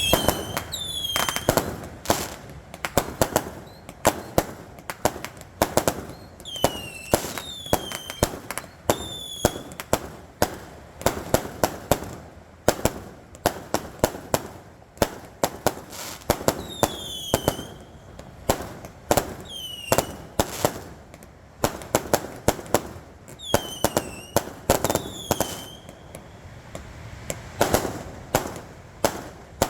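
Fireworks going off in a dense, irregular string of sharp bangs and crackles. Short high whistles that dip slightly in pitch and then hold recur every few seconds, typical of whistling fireworks.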